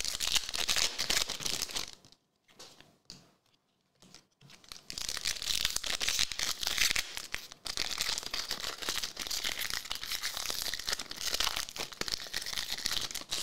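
Shiny foil trading-card pack wrappers being crinkled and torn open by hand. A short spell of crackling at the start, a few brief rustles, then a longer unbroken spell from about five seconds in.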